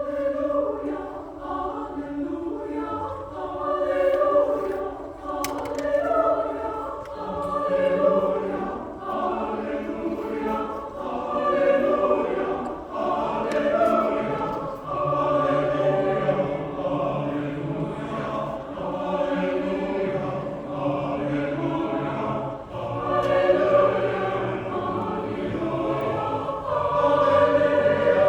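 Choir singing in long sustained phrases that swell and ease about every four seconds.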